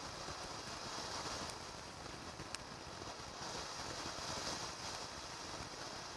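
Blackboxx Nova-Fontäne No. 3, a 30 mm cylinder fountain, burning with a steady hiss as it sprays gold glitter and red stars. A single small pop comes about two and a half seconds in.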